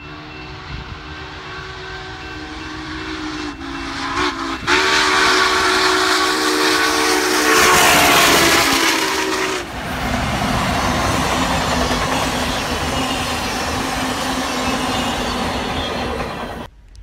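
Union Pacific No. 844, a 4-8-4 steam locomotive, blowing its chime whistle in one long blast with a couple of brief breaks as it approaches and passes at speed, the whistle dropping in pitch as it goes by. Then the whistle stops and the rumble of the train rolling past carries on, until it cuts off abruptly near the end.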